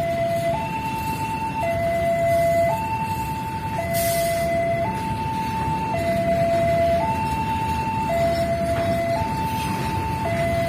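Railway level-crossing warning alarm sounding a steady two-tone signal, switching between a lower and a higher pitch about once a second, over a steady low rumble. A short hiss cuts in about four seconds in.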